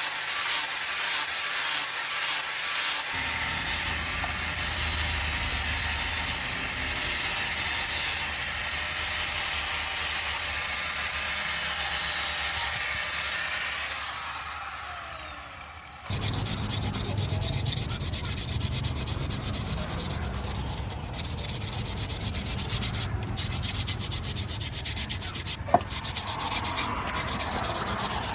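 Steel sword blade being power-sanded or ground, a steady abrasive rasp with a motor hum underneath. The tool winds down about halfway through, then the sanding picks up again, with one sharp click near the end.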